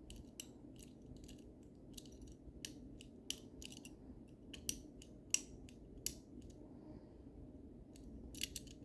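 Lever-lock picks clicking and scraping inside a lever lock as they probe and lift the levers: irregular small metallic ticks, a few sharper ones around the middle and a quick cluster near the end.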